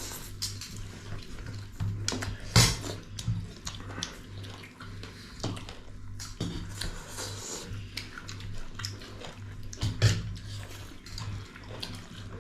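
Eating sounds at a meal of rice and pork broth: wet chewing and slurping with scattered sharp clicks of dishes, the loudest about two and a half seconds in and again about ten seconds in, over a steady low hum.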